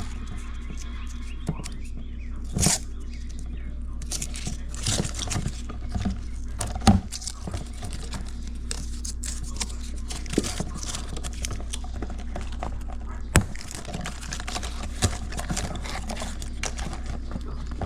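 Hands working with electrical wiring: scattered clicks, scrapes and rustles as 12-2 cable and wire ends are handled for the outlet hookup, with two sharp clicks standing out. A steady low hum runs underneath.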